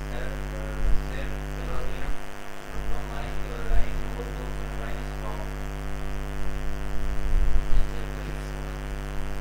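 Steady electrical mains hum with a stack of evenly spaced tones, with faint speech-like voices under it. A few low thumps come about a second in, near the middle and near the end.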